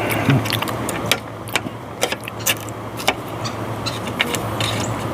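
Close-miked eating sounds: sharp mouth clicks and smacks from chewing steak at irregular intervals, over a steady low hum.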